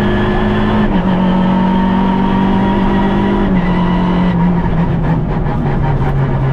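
Onboard sound of a Citroën Saxo VTS rally car's engine running hard at fairly steady revs, with a higher whine above it. The pitch drops a little twice and then eases lower over the last couple of seconds, as the revs fall, with knocks and rattles through the cabin near the end.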